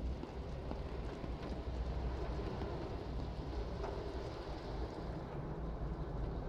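Water spraying onto a car's windshield and body in a car wash, heard from inside the car as a steady rushing hiss over a low rumble.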